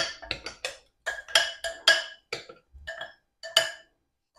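A metal spoon knocking and scraping against a blender jar as food is scooped out: a quick, irregular run of about a dozen sharp clinks, each ringing briefly.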